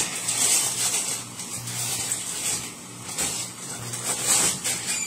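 Cubed chicken frying in butter in a pan, a rising and falling sizzle, over a steady low hum.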